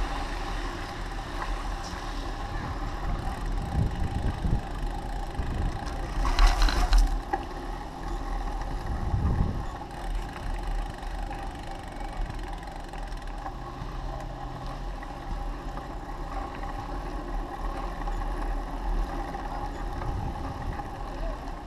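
Bicycle being ridden on a tarmac path: tyre rumble and wind buffeting the handlebar-mounted camera, swelling now and then, with a brief loud burst of noise about six seconds in.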